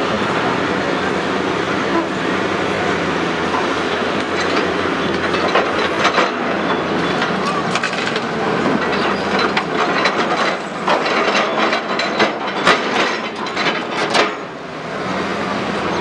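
Heavy excavator engine running under load, with a run of sharp clanks and knocks of steel on stone as a marble block is worked, most frequent in the last few seconds.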